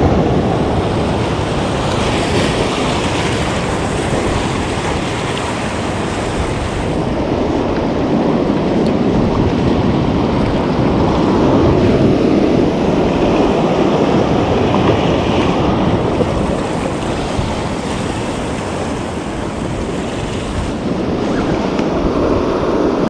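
Ocean surf washing steadily over and around coastal rocks, with wind buffeting the microphone.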